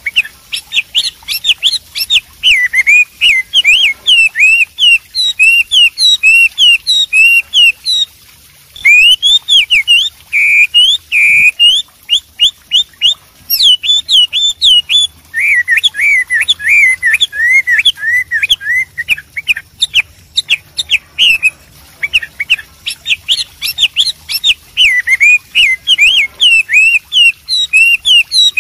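Chinese hwamei singing: a loud, fast, almost unbroken song of whistled notes sliding up and down, with the phrases changing as it goes. It stops briefly about eight seconds in, and partway through it switches to a lower, quicker run of notes for a few seconds.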